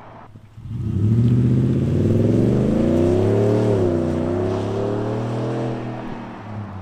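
2021 Ford F-150's exhaust through an MBRP 3-inch single side-exit system, the truck accelerating: the exhaust note comes up loud about a second in, climbs in pitch, dips briefly, then holds and fades near the end.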